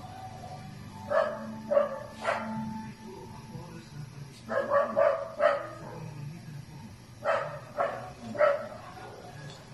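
A dog barking repeatedly, about ten short barks in three bunches, over a steady low hum.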